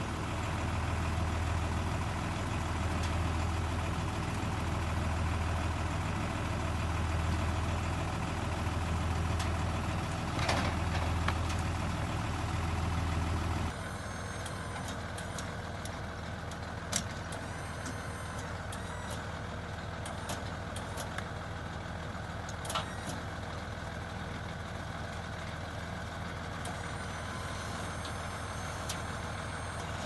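Truck engine running while the truck-mounted hive crane works, a low hum swelling and fading about every two seconds. About halfway through it drops to a quieter, steadier running sound with a couple of sharp clicks.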